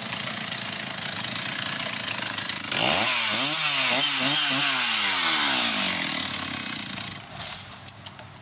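Chainsaw revved up sharply about three seconds in, its pitch wavering up and down for a few seconds before it winds back down to a quieter run near the end.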